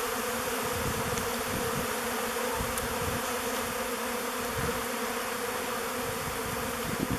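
A honey bee swarm buzzing steadily in a dense, continuous hum as the bees move into a carved log hive.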